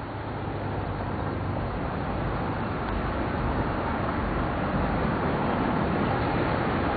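Steady road traffic noise from cars crossing a bridge, a continuous rush that grows slowly louder.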